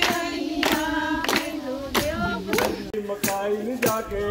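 A group of voices singing a Punjabi wedding folk song together, with sharp rhythmic hand claps about one and a half a second keeping time.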